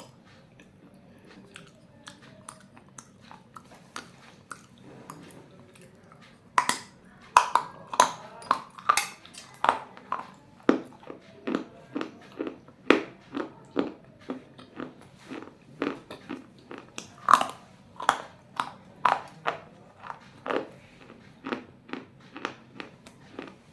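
Pieces of baked clay bowl being bitten and chewed close to the microphone: a few faint clicks at first, then from about six seconds in a steady run of sharp crunches, about two a second.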